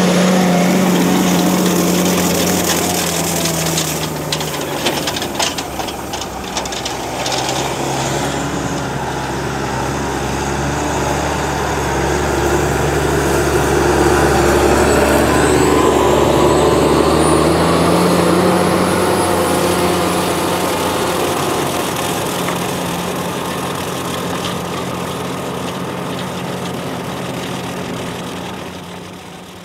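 Farm tractor engine running under load while pulling a two-axle slurry tanker with a disc injector through the soil. The engine note swells and shifts in pitch midway as the rig passes, with some rattling about five seconds in.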